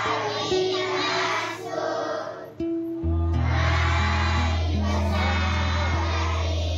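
Music with voices singing together over held notes. After a brief dip, a deep bass note comes in about three seconds in and holds.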